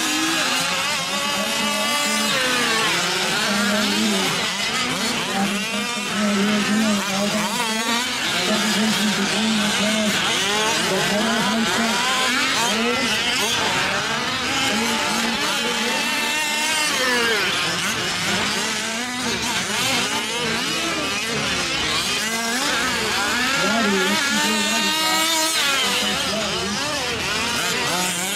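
Several 1/5-scale gas RC off-road trucks racing together, their small two-stroke engines revving up and down over and over, overlapping one another.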